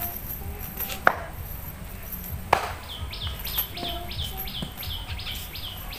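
Two sharp knocks about a second apart as a wet cast net full of fish and weeds is handled on concrete. From about halfway through, a bird calls in a quick run of short, falling chirps, about three a second.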